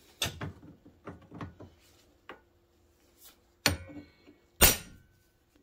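A claw hammer strikes a hand impact driver twice, about a second apart, to break loose a screw holding the slider on the snowmobile skid's aluminium rail. The first blow leaves a short metallic ring. Lighter clicks come before the blows as the driver is set on the screw.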